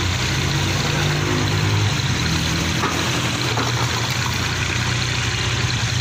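Diesel engine of a tractor idling steadily with a low, even hum.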